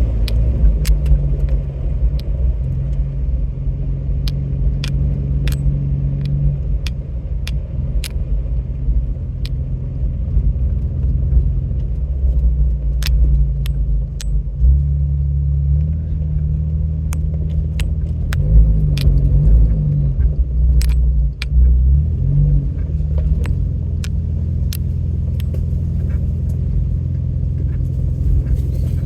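Off-road vehicle's engine running at low speed on a rough dirt trail. Its pitch shifts with the throttle, and frequent sharp clicks and knocks come through the whole time.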